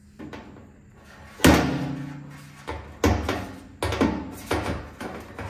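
A series of hollow metallic knocks and bangs on a sheet-steel fuel tank, the loudest about a second and a half in, with the tank ringing briefly after each one.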